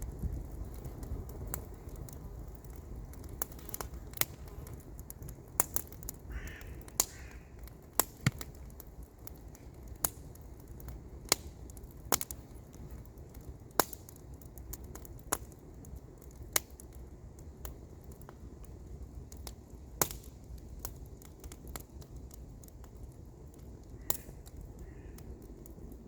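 Wood campfire crackling, with sharp single pops every second or two over a low steady rumble. A bird calls twice about six seconds in, and faintly again near the end.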